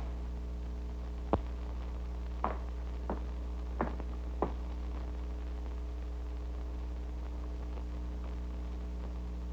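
Steady electrical hum on an old television film soundtrack. In the first half it carries five light footsteps on a floor, about two thirds of a second apart, the first the sharpest.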